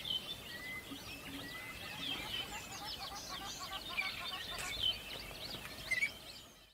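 Many small birds chirping and twittering together, short quick calls overlapping one another; the sound cuts off abruptly at the very end.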